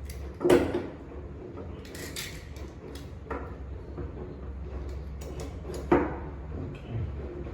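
Knocks and clunks of metal welding gear being handled while getting ready to weld, with two sharp knocks, about half a second in and near six seconds, and a few lighter taps between, over a steady low hum.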